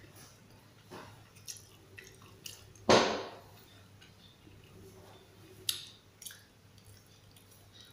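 Handling noises: scattered light clicks and rustles, the loudest a brief rustle about three seconds in that trails off quickly, over a faint steady low hum.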